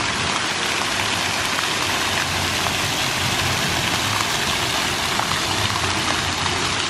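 Ground-level splash-pad fountain jets spraying up and splashing down onto wet paving: a steady, dense hiss of falling water.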